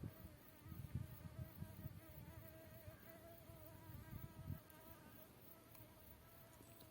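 A flying insect buzzing close by, a faint steady hum that wavers slightly in pitch. Low rumbling comes and goes under it in the first half.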